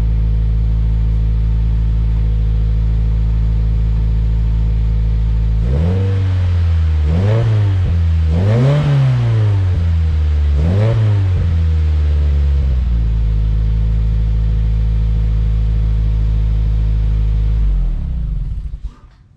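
A 2016 Subaru WRX's turbocharged 2.0-litre flat-four idles through a Cobb titanium cat-back exhaust, a deep tone with a little rasp. About six seconds in it is revved four times, then it settles back to idle and is switched off near the end.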